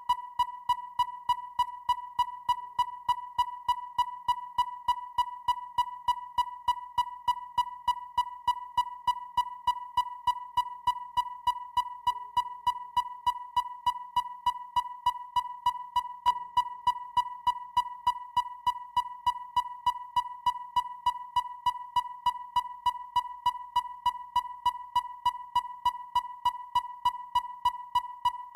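Depth finder (sonar) pinging: a clean high electronic beep repeated at an even rapid rate, about two to three pings a second.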